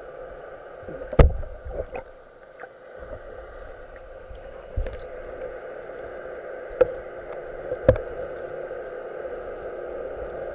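Underwater sound picked up through a diving camera: a steady drone, broken by sharp knocks and clicks from a speargun and its metal spear shaft being handled, the loudest about a second in, then around five seconds, and twice near seven and eight seconds.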